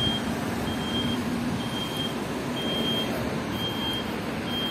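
Electronic warning beeper sounding evenly spaced high beeps, about one a second and each about half a second long, of the kind a vehicle's reversing alarm makes, over steady background noise.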